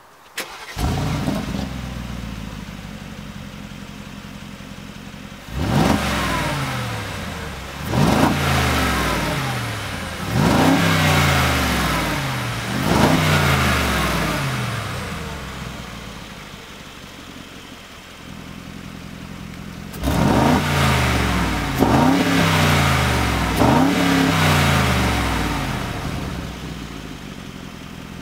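Mercedes-AMG G 63's 4.0-litre twin-turbo V8 breathing through a Baq Exhaust cat-back system with its exhaust valves closed. It fires up with a short flare about half a second in and settles to idle. It is then blipped in quick free revs, four in a row and later three more, each falling slowly back to idle.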